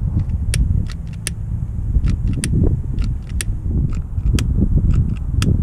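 Wind rumbling on the microphone, with scattered sharp clicks and taps from handling small wiring parts.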